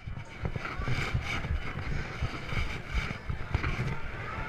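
Irregular low rumbling and rubbing from a body-worn action camera jostled as its wearer walks, with faint background chatter.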